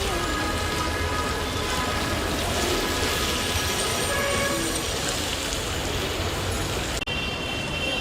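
Steady din of outdoor traffic noise, with a brief break about seven seconds in.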